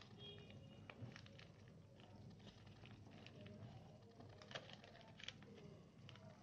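Faint rustling and crackling of a paper sheet being folded and creased by hand, with a few soft sharper crinkles, the clearest near the end. A low steady hum sits underneath.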